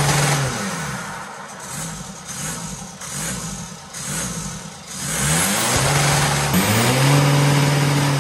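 Volkswagen TDI diesel engine being revved from idle: a few quick blips in the first couple of seconds, then a longer rev from about five seconds in, held high and dropping back just before the end.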